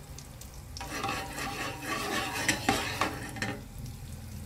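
A knife stirring and scraping melting butter around a ceramic-coated frying pan, with a few sharp clicks of the blade against the pan, from about a second in until near the end. The butter sizzles faintly in the hot pan.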